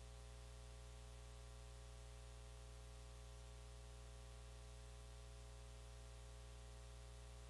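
Near silence: a faint, steady low hum with hiss.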